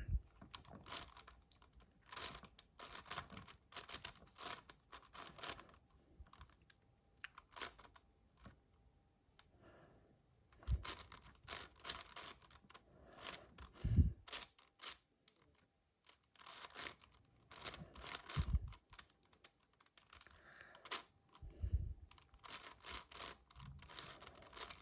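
Faint runs of quick plastic clicks from a 7x7 magnetic cube's layers being turned, in bursts with short pauses. A few soft low thumps come between the bursts.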